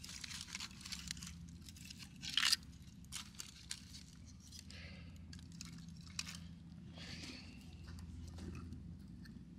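Irregular crunching and crackling of dry material being handled, with a loud tearing crunch about two and a half seconds in.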